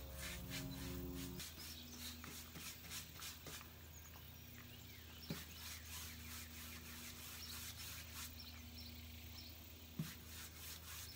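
Faint, repeated rubbing strokes of hand work over the painted wooden top of a dresser, with two sharp knocks, one about five seconds in and one near the end, over a steady low hum.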